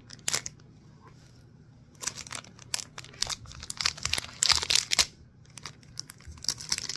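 Plastic wrapping on a small trading-card pack crinkling and tearing as fingers pick at it and peel it open: a couple of sharp clicks at first, then a run of crackling about two seconds in, and more near the end.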